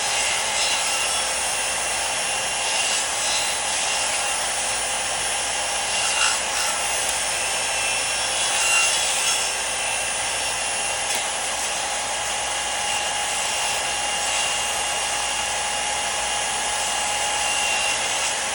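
A power tool cutting wood: a steady motor whine over the hiss of the cut, with a few brief louder moments, most of all about nine seconds in.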